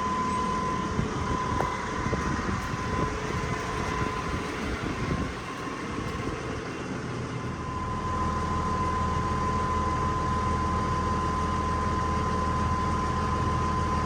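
Heavy farm machine's engine running with a steady high whine over it. The engine note settles into a steady, stronger rumble about halfway through, as during the recovery of a stuck skid loader.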